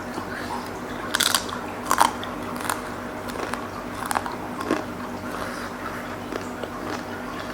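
A person biting and chewing crunchy food close to the microphone while eating seblak, with several sharp crunches, the loudest about a second and two seconds in, then smaller chewing noises.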